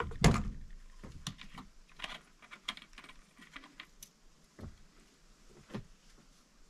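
Light plastic clicks and taps from handling a chainsaw's plastic housing and filler cap on a wooden table, with a louder knock at the very start and two dull thumps near the end.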